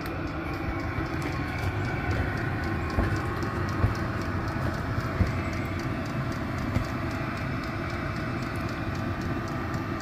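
Vevor 5 kW 12 V diesel air heater running on setting four of five: a steady fan-and-burner rush with a regular light ticking, typical of its fuel dosing pump. A few louder thumps stand out.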